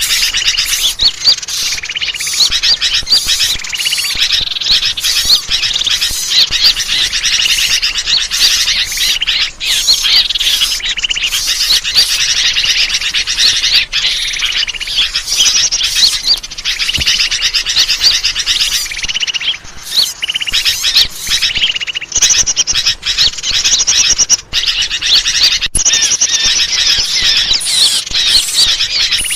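A dense, loud chorus of many small birds chirping and twittering without pause, the kind of crowded bird-lure (pikat) recording played to draw wild birds in.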